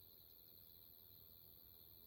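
Near silence, with a faint steady high-pitched insect trill in the background, like crickets.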